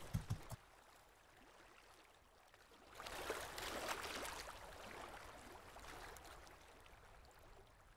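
Faint rush of water, like a wave washing in, swelling up about three seconds in and slowly fading away. Just before it, a few low pulses cut off suddenly.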